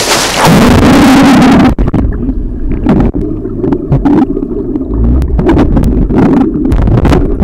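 Spray and splashing on a camera at the water's surface, loud and hissing. It cuts off suddenly under two seconds in, giving way to the muffled sound of being underwater: a low rumble with scattered clicks and bubble pops.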